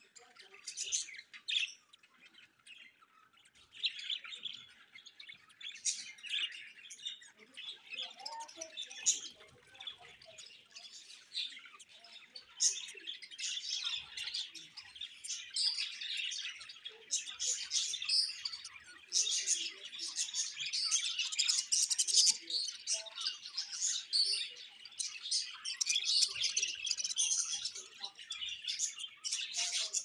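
Budgerigars chirping and chattering in many short, high calls overlapping one another. The calls are sparse for the first few seconds, then grow denser and louder.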